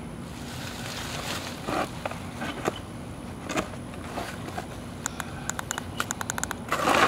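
Charred clothing and debris being scraped off pavement and stuffed into a plastic trash bag: scattered rustling and scraping. About five seconds in comes a quick run of light clicks, and a louder rustle follows near the end.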